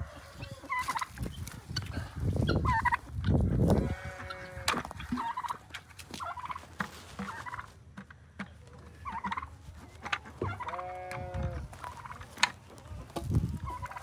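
Domestic turkeys gobbling repeatedly, with two longer, drawn-out calls about four and eleven seconds in. A loud low rushing noise comes in the first few seconds.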